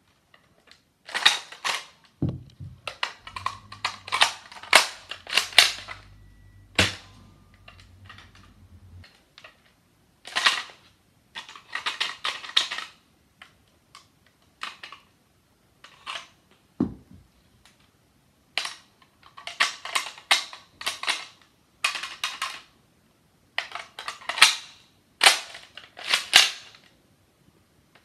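Plastic clicking, snapping and rattling of a Nerf foam-dart blaster being reloaded by hand: the barrel block is flipped open and snapped shut and darts are pushed in, in bursts with short pauses between. Two dull thumps come about two seconds in and again about seventeen seconds in.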